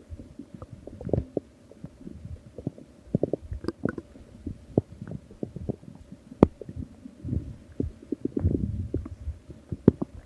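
Stomach growling: irregular low gurgles and small pops, with one sharp pop a little past six seconds in and a louder, longer gurgle at about eight seconds.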